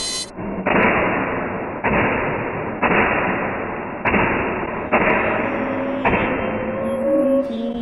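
A series of heavy, muffled thumps, about one a second, each fading out slowly like a booming hit with a long tail. Music with steady notes comes in near the end.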